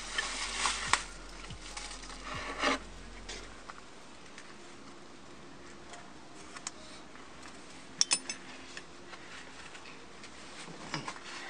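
Metal buckle and adjuster hardware of a Willans racing harness clinking as the straps are handled, with the straps rustling. The sharpest clinks come about a second in and about eight seconds in.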